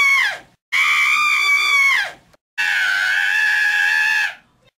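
A person's high-pitched scream, held at a steady pitch for about a second and a half and then falling away, repeated with short silent breaks: the tail of one scream, then two more, the last one a little lower. The repeats are nearly identical in shape.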